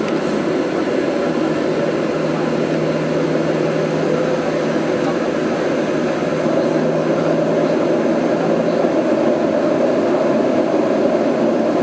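Airliner's jet engines running at taxi power, heard from inside the passenger cabin as a steady engine noise with a low hum. The hum fades out about nine seconds in, and the noise grows slightly louder after about six seconds.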